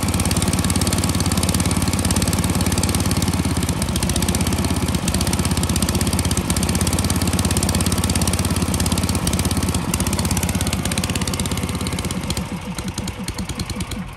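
Robin petrol engine driving an Iwata portable air compressor, running steadily, then faltering and dying away over the last two seconds as it runs out of fuel.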